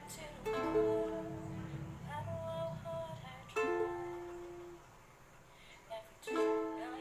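Background music: plucked chords, a new one about every three seconds, each ringing out and fading before the next.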